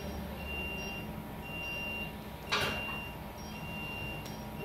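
Electronic beep from operating-room monitoring equipment, one steady high tone of about half a second repeating roughly every second and a bit, over a low hum. A short sharp clatter or rustle about halfway through is the loudest sound.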